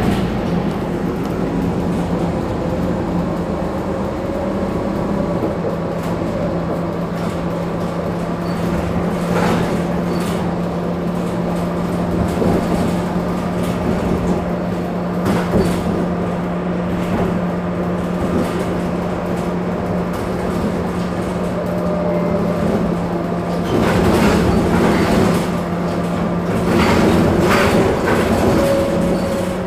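Heuliez GX 137 city bus standing with its engine idling, a steady hum, with a few louder noisy surges in the last few seconds.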